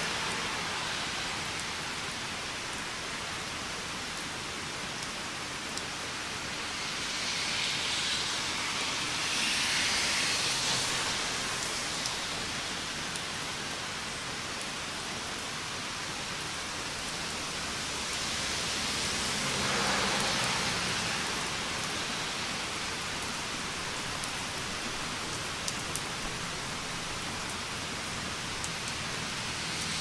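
Steady rain falling, an even hiss that swells louder twice, about a third of the way in and again about two-thirds in, with a few light clicks near the end.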